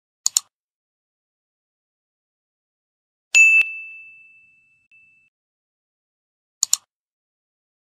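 Sound effects of a subscribe-reminder animation: a quick mouse double-click just after the start, a single bell ding about three seconds in that rings on and fades, and another quick double-click near the end.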